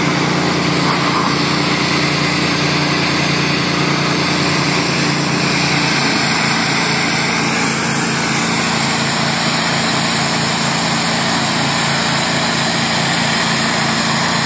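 Engine-driven hot-water pressure washer of a boat decontamination unit running steadily while its wand sprays high-pressure hot water onto a boat hull and trailer to kill and strip off zebra mussels. The engine's note shifts slightly about six seconds in.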